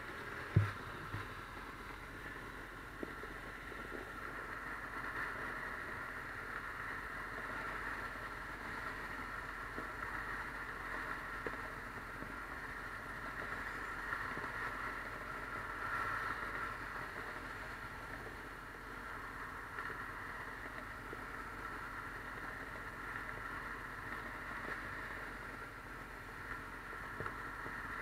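Steady rush of freeway traffic, with one sharp knock about half a second in.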